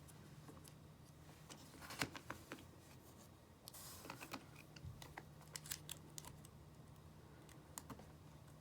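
Faint, scattered small clicks and taps of an iPhone 5's parts and small repair tools being handled during reassembly, over a low steady hum.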